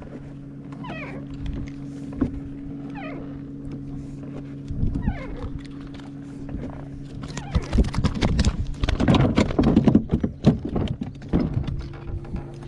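Knocks and clatter of a white bass being handled and thumping against a plastic kayak, densest from about eight to eleven seconds in, over a steady low hum; a few short falling squeaks come in the first half.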